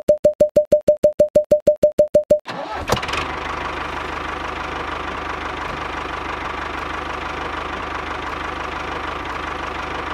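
A rapid electronic beeping of about eight beeps a second, all on one pitch. About two and a half seconds in it stops, and a miniature tractor's motor starts with a click and then runs steadily with a low hum.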